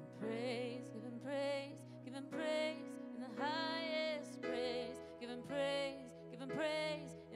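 Woman singing a slow worship song with vibrato on the held notes, accompanied by sustained chords on a Casio Privia digital piano. The chord in the bass changes about halfway through.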